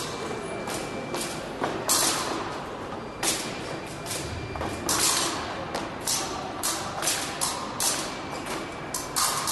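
Women's épée bout in progress: fencers' feet stamping on the piste and blades knocking together, heard as an irregular run of sharp stamps and clicks in a large hall.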